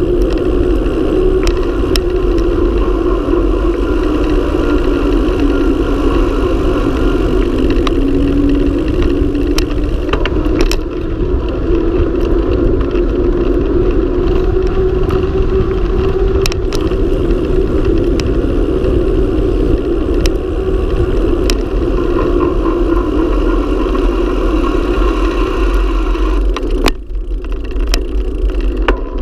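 Wind rushing over a mountain bike's action-camera microphone on a fast descent on asphalt, with the tyres humming on the road surface, the hum drifting up and down in pitch with speed. Occasional sharp knocks come from bumps and potholes in the road, and the wind noise dips briefly near the end.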